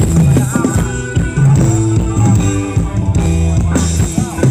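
Live band music for Thai ramwong dancing, with electric guitar, bass and a drum kit keeping a steady beat.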